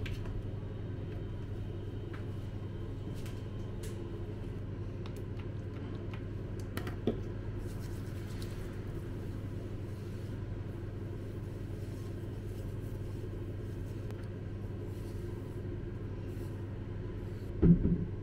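A steady low mechanical rumble and hum that does not change, with a sharp click about seven seconds in and a louder thump near the end.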